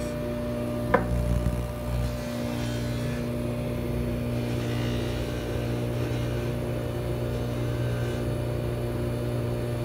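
Bench polishing motor running steadily with a hum while a ring is held against its spinning buffing wheel charged with polishing compound, with a sharp click about a second in.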